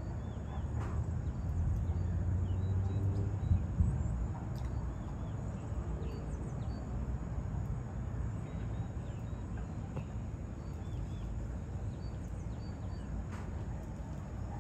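Birds calling: many short high chirps scattered throughout, over a low steady rumbling background that swells a little about two to four seconds in.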